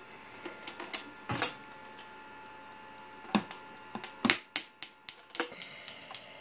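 Sharp clicking from an OpenGrab EPM v3 electropermanent magnet gripper switched on and charging its coils, sparse at first and then about four clicks a second from about four seconds in. A few louder knocks are mixed in.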